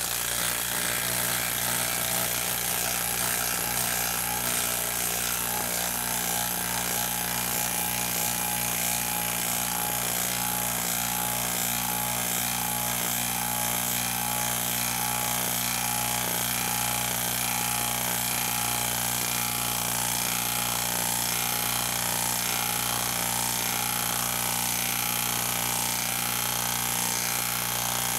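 HILTI half-inch cordless impact wrench on speed 3, hammering steadily and without a break as it drives a half-inch by 10-inch coarse-threaded bolt down into a wooden stump.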